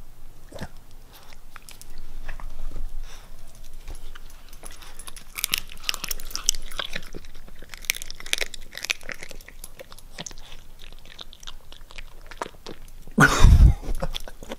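A dog crunching and chewing a chicken foot, the bones cracking in a run of quick crunches. Near the end, one loud deep thump close to the microphone.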